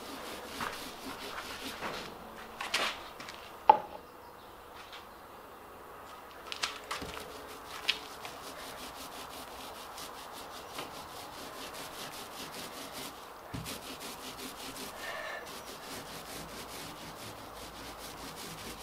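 Small roller rubbing resin into fiberglass mat on a plywood transom, in quick, regular back-and-forth strokes. A few knocks and clicks come in the first seconds, the sharpest about four seconds in.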